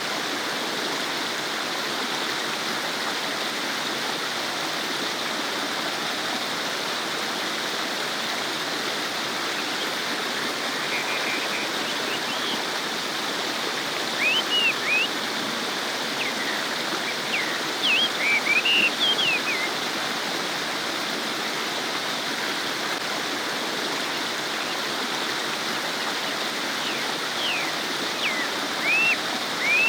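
Stream babbling over rocks, a steady rushing and gurgling of water. Short high chirps come in a few bursts, loudest in the middle and near the end.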